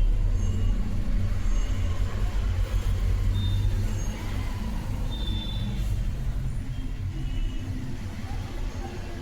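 Low, uneven rumble of a vehicle engine from road traffic, slowly fading away, with a few short faint high chirps over it.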